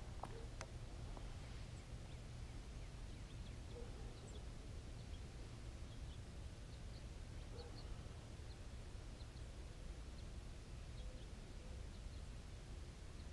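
Faint, scattered short high bird chirps and a few brief low calls over a steady low background rumble.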